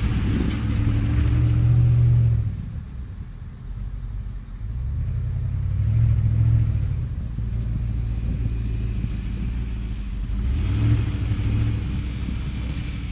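2010 Range Rover Sport's 5-litre supercharged V8 engine running under gentle, controlled throttle on snow, the engine note swelling and easing back three times as the driver feeds in power for traction.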